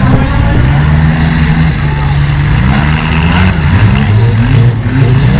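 Several four-cylinder demolition-derby cars' engines running and revving together, their pitches rising and falling.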